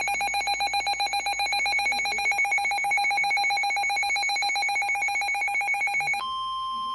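Emergency Alert System two-tone attention signal, a harsh, fast-pulsing ringing tone held steady. About six seconds in it cuts abruptly to a single steady higher tone, the 1050 Hz weather-radio alert tone, which begins the next warning.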